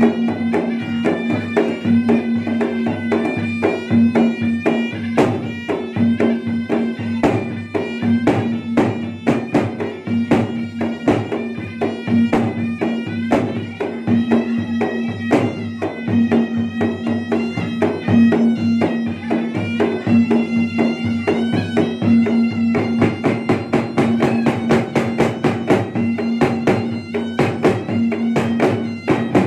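Traditional gendang ensemble: two large double-headed gendang drums beaten fast with hand and stick, under a small flared-bell wind pipe playing an unbroken, bagpipe-like melody over a steady held note.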